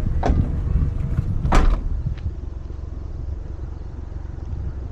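Suzuki Jimny driving on a gravel track: a steady low rumble of engine and tyres, with two sharp knocks near the start, the second the louder, about a second and a half in.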